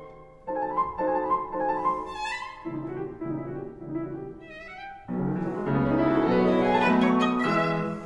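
Background music of bowed strings, violin-like, with piano: slow held notes that shift in pitch every second or so, thinner in the middle and swelling fuller about five seconds in.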